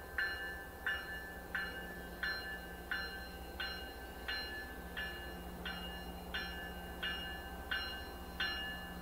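Locomotive bell of an approaching train ringing steadily, about three strikes every two seconds, over a low steady rumble.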